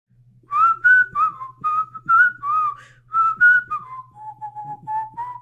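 A whistled jingle: a quick, bouncy tune of about a dozen short notes that steps down to lower, evenly spaced notes about four seconds in, with light clicks keeping time.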